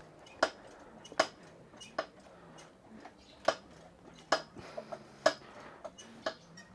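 Hydraulic bike lift jack being pumped to raise a motorcycle, giving a sharp click with each stroke, about once a second at an uneven pace.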